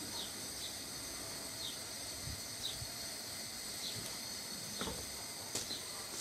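Faint steady background hiss with small high chirps every second or so, and a few soft footsteps on the concrete floor in the first half.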